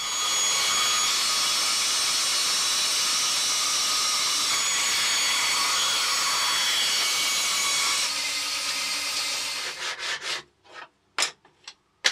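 Bandsaw ripping 3 mm birch plywood into thin strips: a steady cutting noise with a high whine, which eases a little at about eight seconds and drops away at about ten. A couple of sharp knocks follow near the end.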